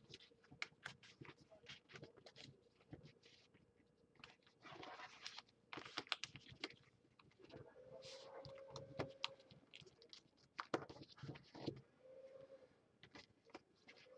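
Origami paper being folded and creased by hand: soft crinkling, rustling and small taps of paper as the flaps of two folded paper units are tucked together into a ninja star. A faint steady hum is heard briefly twice in the second half.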